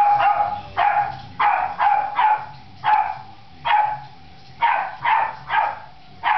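Boston Terrier puppy play-barking: about ten short, high yaps in an uneven string, one to two a second.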